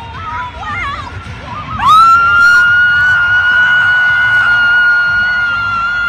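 A high-pitched cheering scream held for about four seconds, sliding up at the start and dropping away at the end. Shorter wavering cries and the noise of a cheering crowd lie under it.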